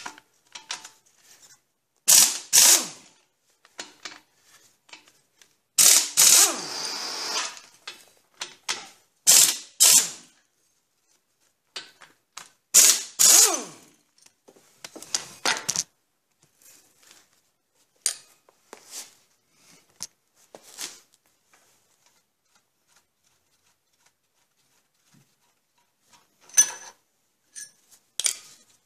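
Handheld power tool running in a series of short bursts with pauses between them, loosening the four bearing-cap bolts on a Dana 30 axle's differential. The longest run comes about six seconds in and lasts nearly two seconds.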